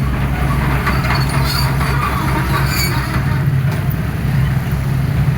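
Hydraulic excavator's diesel engine running steadily at working revs, with short, scattered metallic squeaks and clanks over the drone.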